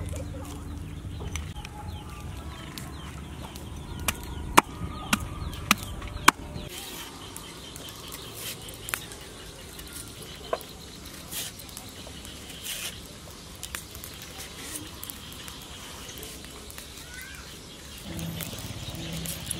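Cleaver chopping a fish on a wooden chopping block: about six sharp knocks in the first six seconds. After that, quieter light ticks and scraping of a knife peeling green bananas.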